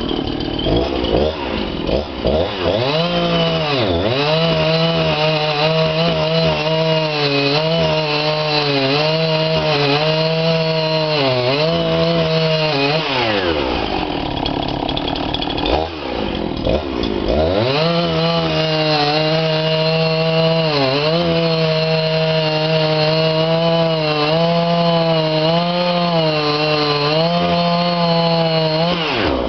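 Husqvarna two-stroke chainsaw running at full throttle while cutting through a firewood log, its pitch sagging now and then as the chain loads up in the cut. About midway it drops back toward idle for a few seconds, then revs up and cuts again.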